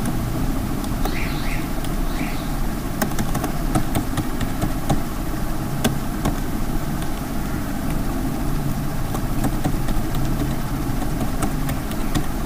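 Steady low background rumble, with scattered sharp clicks of keyboard keys as a password is typed.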